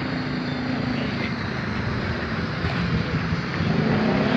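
Steady outdoor noise, mostly wind buffeting the microphone, heaviest in the low end, with no single distinct event.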